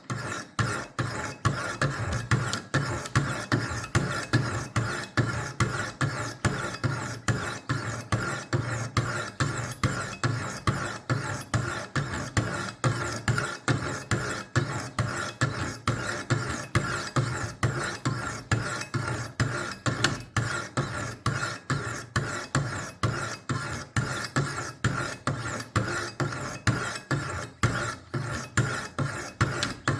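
Diamond sharpening stones of a Wicked Edge WE60 guided sharpener rasping along a steel butter-knife blade in quick, even strokes, about three a second, with light pressure, grinding a new edge onto the dull blade.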